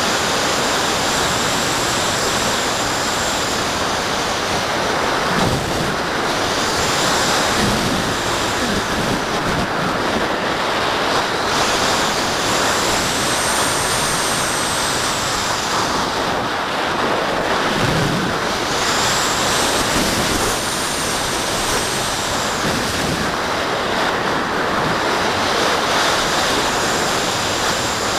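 Airflow rushing over the microphone of a small camera mounted on the wing of a Graupner Cherry II electric glider in flight, a steady windy hiss. A faint high whistle rises and fades several times.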